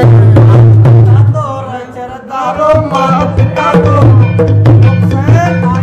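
Dholak and tabla drumming in a folk bhajan interlude, with a wavering melody line above the drums. The playing drops off briefly about two seconds in, then picks up again.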